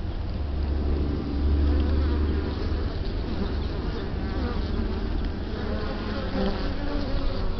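Honeybees buzzing close to the microphone at their nest, individual bees flying past with wavering pitch. A low rumble runs through the first couple of seconds.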